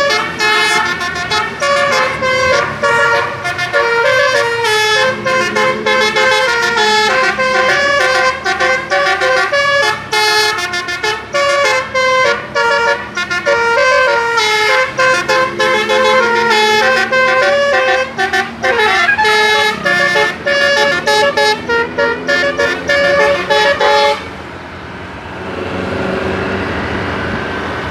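Indonesian bus 'telolet' multi-tone horn playing a long, fast tune of short notes, the pitches jumping from note to note. It cuts off about 24 seconds in, leaving engine and road noise.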